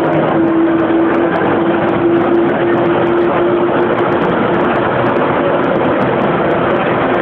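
Helicopter running on the ground with its rotor turning: a loud, steady rush of engine and blade noise, with a steady hum in it that fades about four seconds in.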